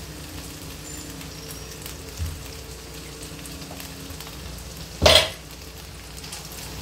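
Liver pieces frying in oil in a nonstick pan with a steady low sizzle under a faint hum. About five seconds in comes one sharp clack as the measuring spoon knocks against the pan while turmeric is tipped in.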